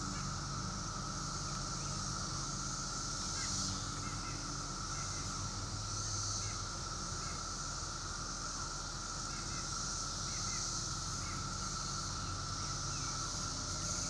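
Steady drone of a periodical (17-year) cicada chorus, with faint bird chirps scattered through the middle and a low steady hum underneath.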